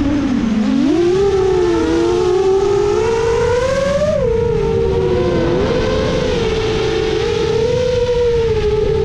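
7-inch FPV quadcopter's Emax Eco II 2806.5 brushless motors and HQ 7x3.5x3 propellers whining in flight. The pitch dips low in the first second, climbs over the next few seconds, drops briefly, then wavers around a steadier pitch as the throttle changes.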